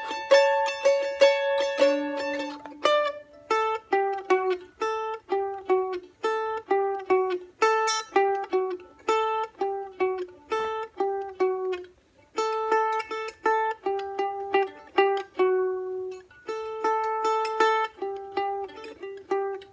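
Solo F-style mandolin picking a melody one note at a time, each note struck sharply and ringing briefly. The playing pauses for a moment about twelve seconds in, then carries on.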